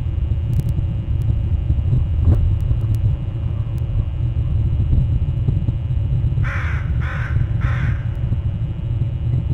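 Crow cawing three times in quick succession, about six and a half seconds in, over a steady low rumble.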